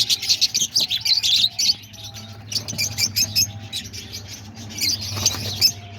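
A mixed flock of small aviary birds (cockatiels, parakeets and lovebirds) chirping rapidly and continuously over each other, with a few short whistled notes, over a low steady hum.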